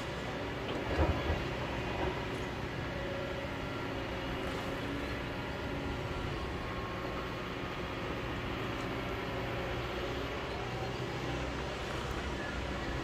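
Kobelco hydraulic excavator's diesel engine running steadily under load as the machine digs and swings. About a second in there are two short knocks, and another a moment later, from the bucket working the rocky cut.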